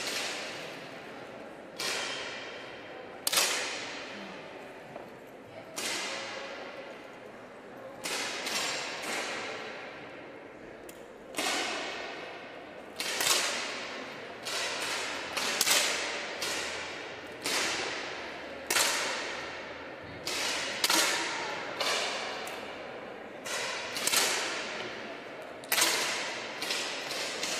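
10 m match air pistols firing: about twenty sharp shots at irregular intervals, several shooters firing one after another. Each shot has a short reverberant tail from a large hall.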